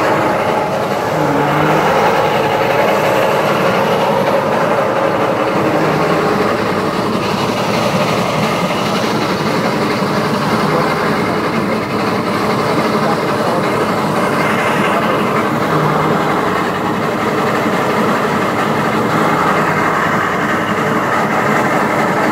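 Engine-driven crop threshing machine running steadily at a constant loud level, with no pauses.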